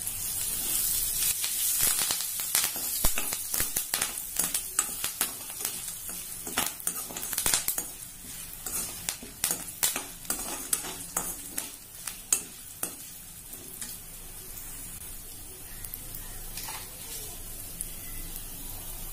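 Curry leaves spluttering in a pan of hot sesame-oil tempering with lentils and peanuts, a steady sizzle with many sharp crackles as it is stirred. The crackling is busiest in the first half and thins out toward the end.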